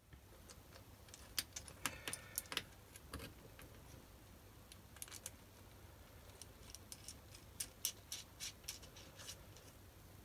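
Faint, light metal clicks and taps as the steel index crank arm is slid and seated onto the worm-shaft end of a BS-0 dividing head. The clicks come in two bunches, one a little over a second in and one near the end.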